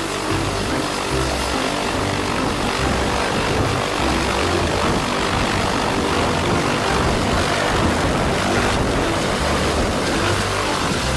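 A Eurocopter EC135 rescue helicopter running its turbine and rotor with a steady, loud rushing noise, lifting off during the last few seconds.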